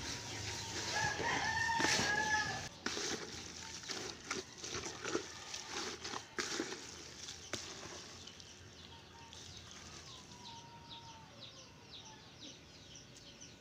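A rooster crows once, about a second in, over the rustling and scraping of hands mixing a damp mash of chicken feed and moringa leaves in a basin. The mixing noise dies down after about eight seconds, and a fainter chicken call follows near ten seconds in.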